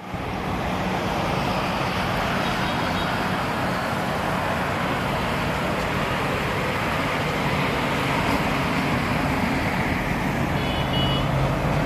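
Steady road traffic on a multi-lane highway below: motorbikes, cars and trucks passing, a continuous traffic noise with a low engine hum.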